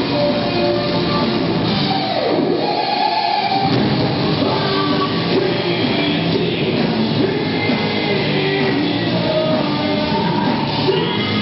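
Live heavy metal band playing loud, with guitars, bass, drums and sung vocals. About two seconds in the low end drops out briefly under a falling note, then the full band comes back in.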